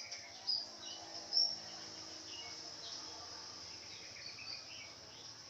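Small birds chirping in the background: scattered short, high chirps, the loudest about half a second and a second and a half in, over a steady faint high hiss.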